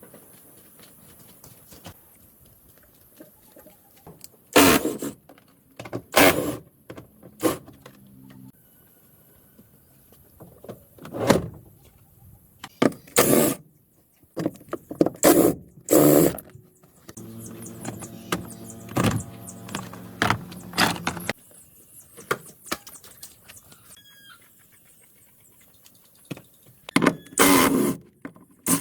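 Repeated short, loud clatters, and a steady motor hum that runs for about four seconds past the middle.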